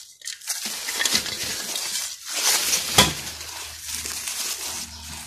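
A hand scraping and pressing loose soil and dry leaf litter, giving a rustling, crunching sound with a sharp snap about three seconds in.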